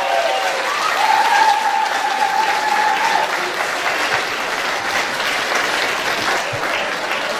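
Audience applauding between songs at a live concert, the clapping easing off slightly towards the end.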